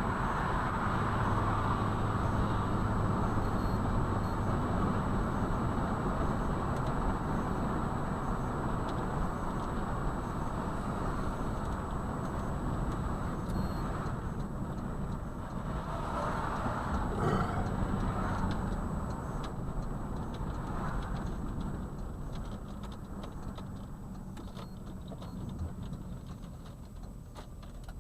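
A car driving on a road: steady engine and tyre noise that grows quieter over the last few seconds.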